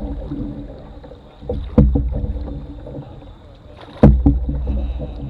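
Canoe paddle strokes: two strokes about two and a half seconds apart, each beginning with a sharp knock of the paddle against the hull and fading over about a second as the blade pulls through the water.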